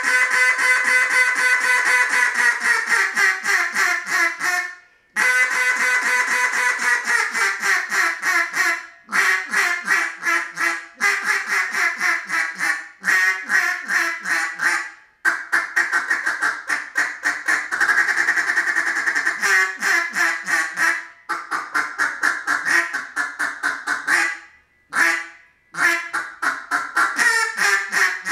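Open water style duck call of Osage orange (hedge) blown hard through an open water routine: a long, loud hail of rapid quacks that falls in pitch, then a string of shorter quack runs broken by brief pauses, with a quicker, denser run about the middle.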